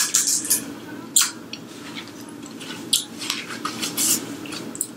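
Close-miked chewing of a crisp deep-fried egg roll: a run of short, irregular crackly and wet mouth sounds.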